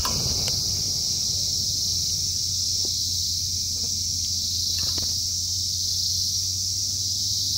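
Steady, high-pitched chorus of insects, likely crickets, with a few light clicks and knocks of handling scattered through it.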